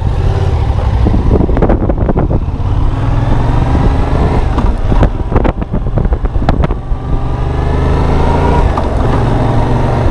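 Yamaha FZ-07's 689 cc parallel-twin engine pulling away and accelerating, its pitch rising and dropping back several times as it revs.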